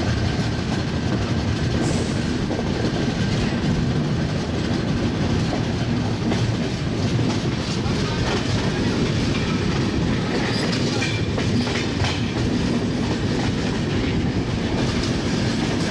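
Express passenger coach running on the track as the train gathers speed out of a station, a steady rumble with the clickety-clack of its wheels over rail joints and points. A faint high wheel squeal comes in about ten seconds in.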